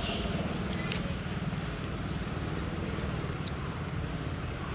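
A motor running steadily with a low pulsing hum, with a short hiss in the first second.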